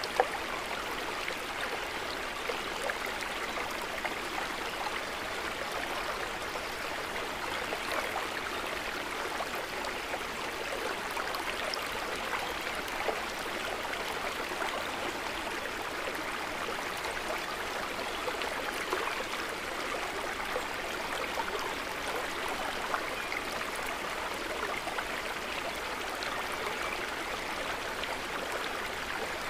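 Water babbling and trickling gently and steadily, with one short sharp click just after the start.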